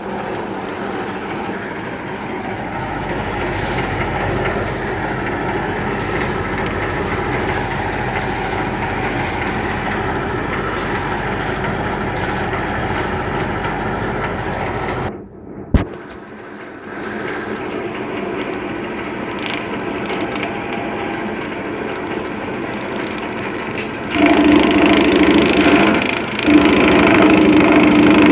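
Small engine driving a grass chopper, running steadily. About halfway through the sound drops out for a moment with a sharp click, and near the end it comes back noticeably louder and heavier.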